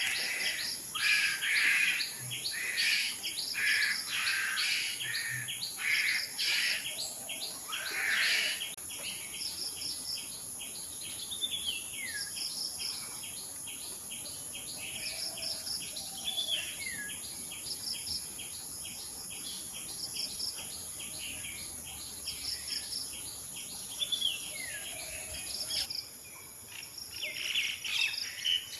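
Asian koel calling repeatedly, loud notes about once a second for the first several seconds, over a steady high-pitched drone of insects. Later another bird gives a falling whistled note a few times.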